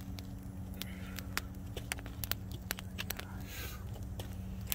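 Open wood fire crackling, with irregular sharp pops and snaps from the burning logs under a spit-roasting duck.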